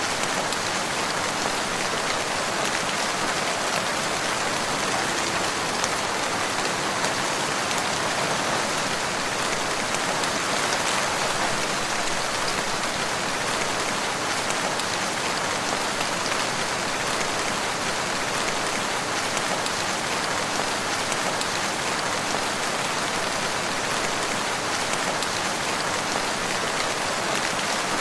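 Steady rain falling, an even hiss of many drops that neither builds nor fades.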